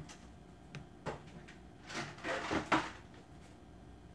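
Household objects being handled: a few short knocks and clatters, like a container or cupboard being opened and shut, with a cluster of them about two to three seconds in.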